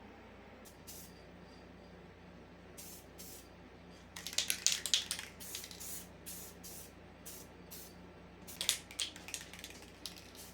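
Aerosol spray paint can spraying in many short hissing bursts, with the heaviest runs of bursts about four seconds in and again near the end, over a faint steady hum.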